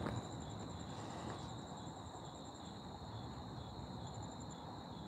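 Night insects, crickets, chirping steadily: a continuous high trill with a still higher, pulsing trill above it, over a faint low rumble.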